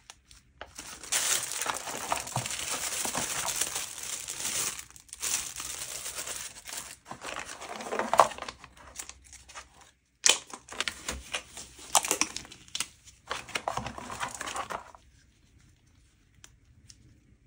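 Plastic packaging crinkling and rustling in hand: shrink wrap tearing off a small cardboard box and a plastic zip bag being handled, in irregular bursts that die away about fifteen seconds in.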